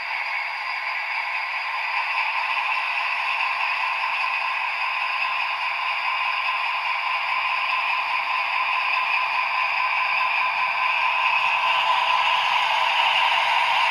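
Jouef HO-scale BB 67455 model diesel locomotive and its coaches running along the track, its motor and wheels making a steady mechanical noise that grows gradually louder.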